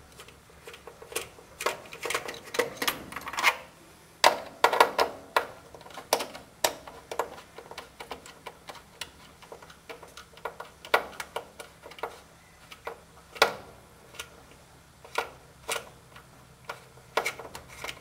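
Irregular small clicks and metallic ticks of mounting bolts and hardware being worked loose by hand from a furnace draft-inducer assembly, some coming in quick clusters.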